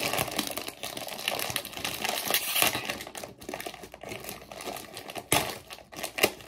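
Crinkling and crackling of a foil potato chip bag as it is pulled open and rustled while fingers reach inside, with a few sharper crackles near the end.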